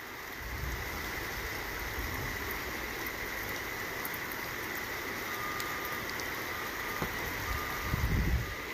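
Steady rush of floodwater through the street under a low vehicle engine rumble that swells briefly near the end, with a row of short faint beeps in the second half.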